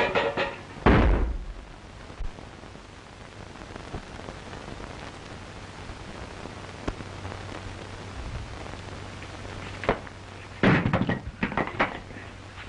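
A heavy thud about a second in, then quiet, then a quick cluster of knocks and bangs near the end. A steady low hum and hiss from an old film soundtrack runs underneath.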